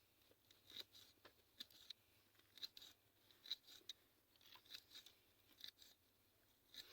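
A string of faint, crisp cutting snips, irregularly spaced at one or two a second, typical of ingredients being cut during cooking prep.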